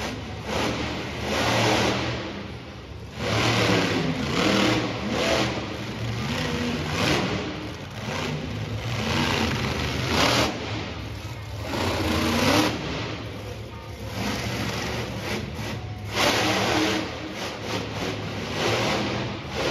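Monster truck engine revving in repeated surges, rising and falling every second or two.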